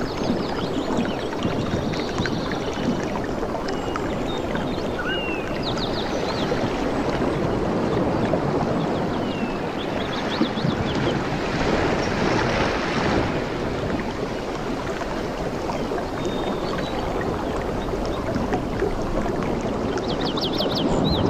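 Ocean waves washing steadily, swelling about halfway through, with small birds chirping and trilling now and then above the surf.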